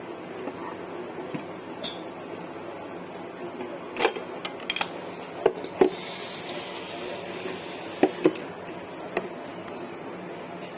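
Parts of a carpet washer and its packaging being handled: a string of sharp clicks and knocks about four to six seconds in and again around eight seconds, with a brief rustle, over a steady low room hum.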